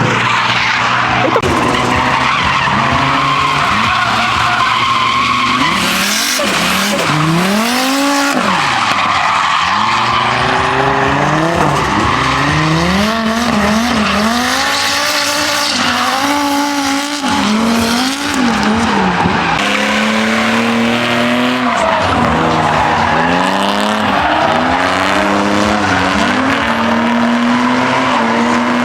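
Drift car engine revving up and down over and over, its pitch climbing and dropping every second or two. The tyres screech and skid under it the whole time.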